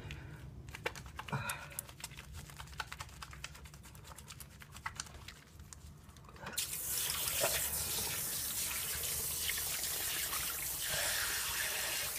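A water tap is turned on about halfway through and runs steadily into a sink, with splashing as shaving lather is rinsed off the face. Before that there are only faint small clicks.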